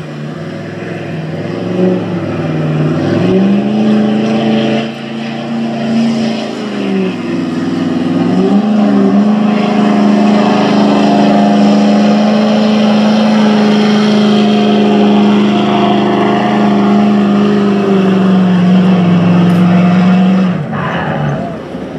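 Street diesel pickup truck's engine running hard under load on a pull. The revs climb about three seconds in, dip and climb again around eight seconds, hold steady, then drop off near the end.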